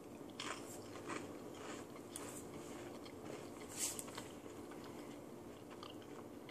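A stacked potato crisp (Pringles Loaded Baked Potato) crunching as it is chewed: faint, irregular crunches for about the first four seconds, the loudest near four seconds in, then quieter chewing.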